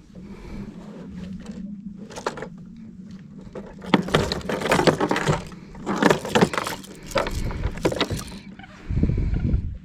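Rattling and clattering in repeated bursts as a caught trout is unhooked and handled on a kayak, with the lure's hooks and gear knocking together, followed near the end by a short low rumble.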